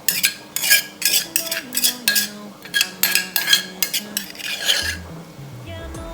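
Kitchen utensils clattering and clinking against a bowl or mortar while a som tam salad is mixed: about a dozen quick, irregular strikes that stop about five seconds in. Background music with a melody plays underneath.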